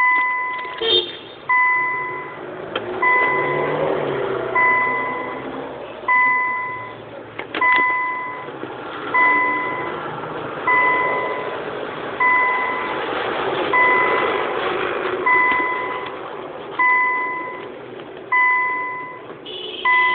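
Electronic beeper sounding one steady tone, each beep just under a second long, repeating about every one and a half seconds. A low background murmur runs underneath.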